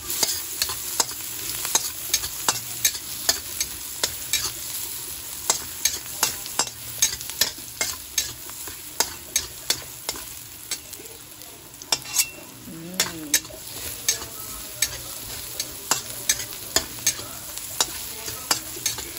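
Garlic sizzling in hot oil in a stainless steel wok, stirred with a spatula that scrapes and taps against the wok in frequent sharp clicks, about one or two a second. This is the sautéing (gisa) stage, frying the garlic before the other ingredients go in.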